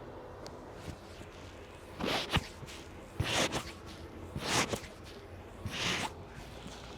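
A barber's hands rubbing briskly over a customer's head during a head massage: four swishing strokes about a second apart, with a few small clicks between them.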